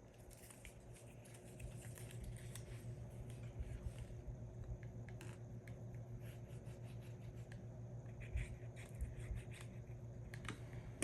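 Faint rustling and light tapping of paper pages being handled and lined up, with irregular small clicks over a steady low hum.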